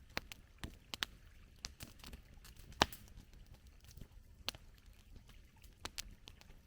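Campfire crackling: irregular sharp pops and snaps of burning wood, with one louder snap about three seconds in.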